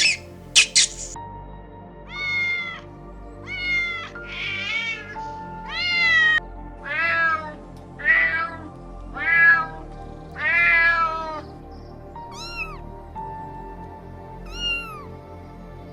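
Domestic cat meowing about ten times, each meow rising then falling in pitch, spaced a second or so apart, over soft background music. A few short high chirps in the first second.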